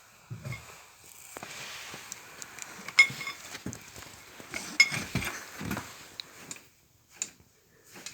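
Metal wrench clinking and scraping against a bolt and nearby metal as it is fitted and worked, with two sharp ringing clinks about three and five seconds in.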